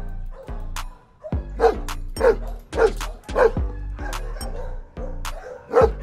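Samoyed barking repeatedly, a run of short barks about half a second apart starting about one and a half seconds in, over background music with a steady beat.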